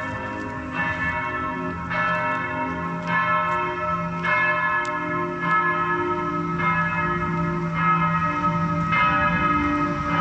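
Bells struck in a slow, even sequence, about eight strikes roughly a second apart, each ringing on and overlapping the next.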